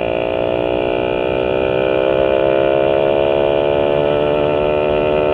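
Yamaha Sigma motorcycle engine, fitted with a UMA 30 mm carburettor and a 'kodok' intake manifold, running hard under open throttle: a loud, even drone that holds nearly the same pitch throughout. The rider finds the mixture still slightly lean.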